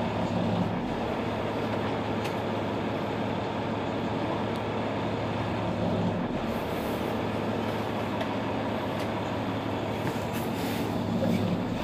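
Mercedes-Benz Citaro C2 city bus engine idling steadily while the bus stands at a stop, with a low even hum and a couple of brief hisses of air near the end.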